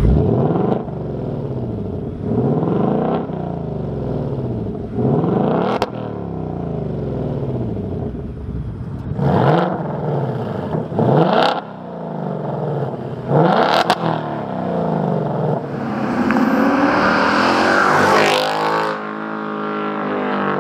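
2024 Ford Mustang Dark Horse's Gen 4 Coyote 5.0 V8 revving repeatedly in track-mode exhaust, pitch climbing and falling with each rev. First it runs on the stock exhaust with its factory suitcase resonator, then with a Corsa 3-inch stainless double H-pipe in place of the resonator, which makes it louder. Near the end comes a longer run as the car accelerates hard.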